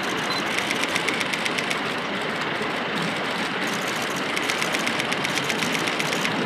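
Rapid bursts of camera shutter clicks, about ten a second, in two runs: the first about half a second in, the second about four seconds in. Steady background noise runs underneath.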